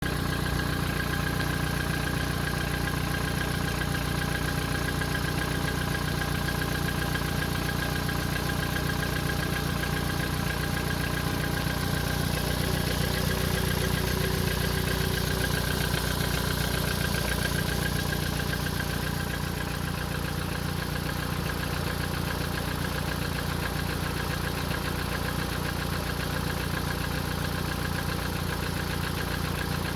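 Volkswagen Golf Mk5 1.6 FSI four-cylinder petrol engine idling steadily from cold, with a fast light ticking over the idle that the owner takes for hydraulic lifter noise on a cold start.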